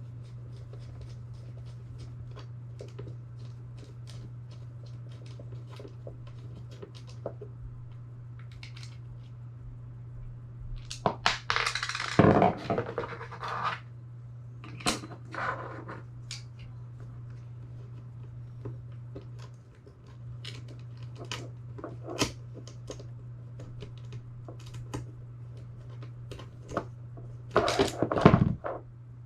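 Small metal bracket hardware being handled and fastened: scattered light clicks and ticks, with louder scraping and rattling around the middle and again near the end, over a steady low hum.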